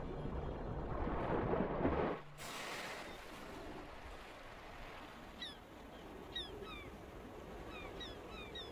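Sea and surf noise under low background music. About two seconds in, the music stops and there is a brief rushing hiss. After that the coast is quieter, with birds giving many short, falling chirps.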